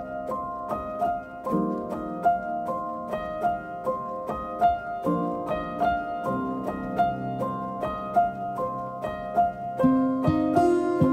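Background music of plucked, harp-like notes in a steady rhythm, with lower notes coming in near the end.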